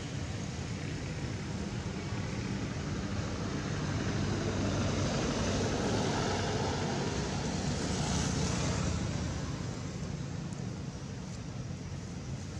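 Distant engine drone that grows louder through the middle and fades again.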